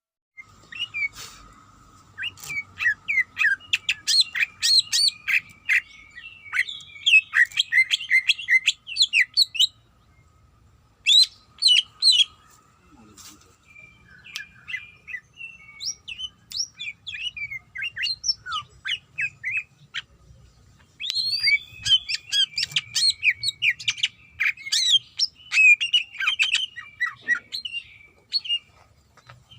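Cucak ijo (greater green leafbird) singing a fast, varied chatter of sliding chirps and whistles in long loud runs, with a softer, sparser stretch in the middle.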